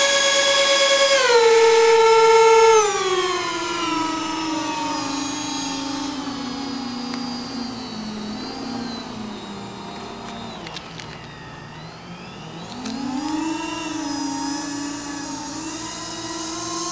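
Electric fan motors of a foam RC MD-80 airliner model running with thrust reversers deployed to back the model up on pavement. A whine that drops in two steps in the first three seconds, slides steadily lower and fainter until about twelve seconds in, then rises again and holds.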